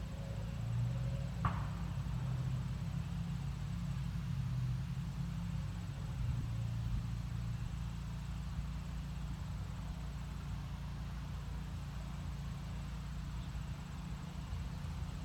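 Wind blowing across the microphone, a steady low rumble, with one brief high chirp about one and a half seconds in.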